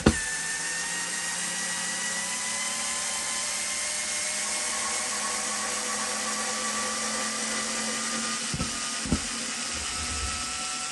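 Makita 3.6 V cordless pencil screwdriver running steadily under load as it turns a screw in a block of wood, its motor and gearbox whining. There is a sharp click at the start and two short knocks near the end.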